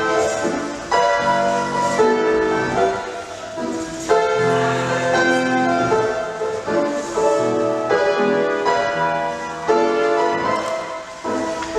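Piano playing classical-style music in phrases of chords and melody notes, a new phrase starting every second or two.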